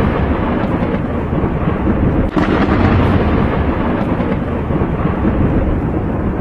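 Thunderstorm: loud, continuous rumbling of thunder over rain, with a sharp fresh peal about two seconds in.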